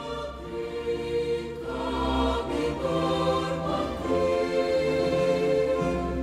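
Slow background music: sustained chords over a low held bass note, the chord changing about one and a half seconds in and again about four seconds in.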